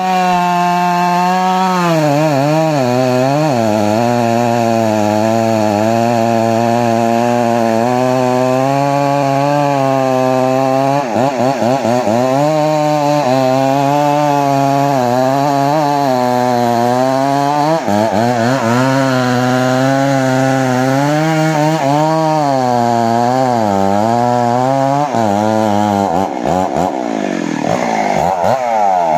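Chainsaw running hard as it cuts through timber, its engine note sagging and picking up again under the load, with a few quick revs and drops in pitch near the end.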